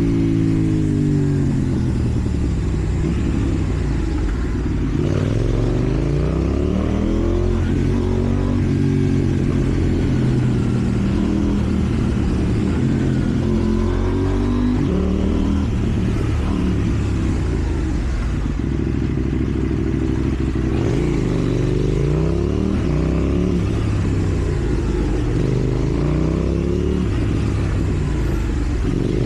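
KTM Duke 790's parallel-twin engine through a slip-on exhaust, riding along with the pitch rising and falling again and again as the throttle is opened and closed through the gears.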